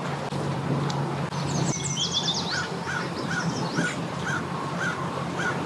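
Birds calling: a quick run of high, sweeping notes about one and a half seconds in, then a short call repeated about twice a second over a steady low hum.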